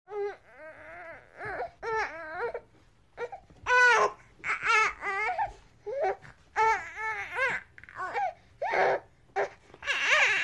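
Baby crying angrily in a string of short, wailing bursts, each cry bending up and down in pitch, with brief gaps for breath between them.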